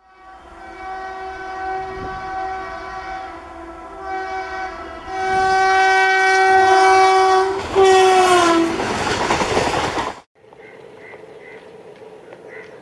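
WAP-7 electric locomotive's horn sounding in long blasts, louder as the train approaches, then dropping in pitch as it passes, with the rush of the train going by. The sound cuts off suddenly about ten seconds in, leaving faint background noise with a few bird calls.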